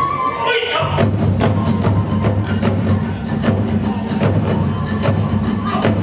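Kagura festival music: drums and hand cymbals beating a steady, fast rhythm of about two to three strokes a second. A held high note breaks off within the first second.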